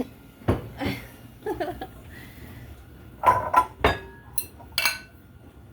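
Kitchen bowls and dishes knocking and clinking together as they are handled and set down, in a series of separate knocks with a cluster of them about three seconds in.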